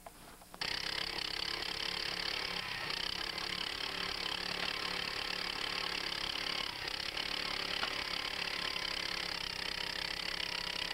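Engine of a two-man power auger running steadily while the auger bores into the ground. The sound cuts in suddenly about half a second in.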